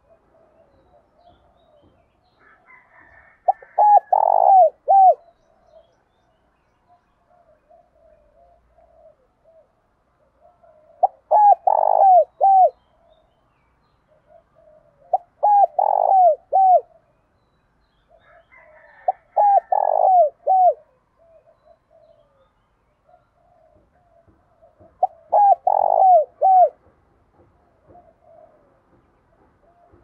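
Spotted dove singing its cooing song in the deep 'giọng thổ' style: five phrases of about four short, falling coos each, a few seconds apart, with soft low murmuring between them.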